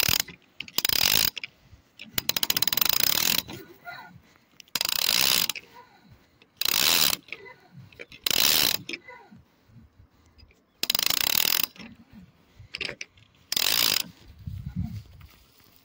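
Fishing reel cranked in about seven short spells of a second or so, its gears ratcheting each time.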